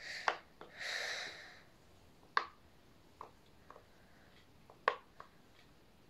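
Silicone glitter pop-it fidget toy having its bubbles pressed through one by one, giving scattered soft pops and clicks, the loudest about two and a half seconds in and near five seconds. The bubbles are being pushed over to the toy's 'good side'.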